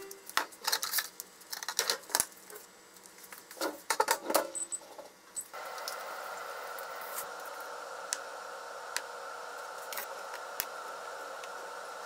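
Kitchen handling: clicks and light knocks as a seasoning bottle is used and dishes are moved, then, about five and a half seconds in, a steady hum starts suddenly, typical of a microwave oven running, with a few taps over it.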